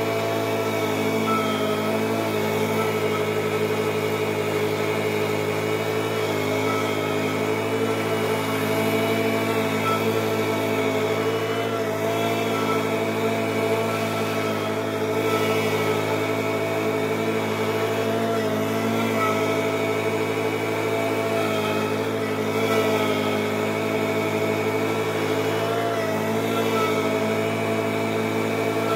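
Lawn mower engine running steadily at an even speed while mowing.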